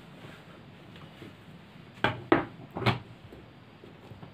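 Three short handling knocks, about two to three seconds in. They come from a screwdriver being put aside and the hand blender's motor-and-shaft assembly being handled on a tabletop.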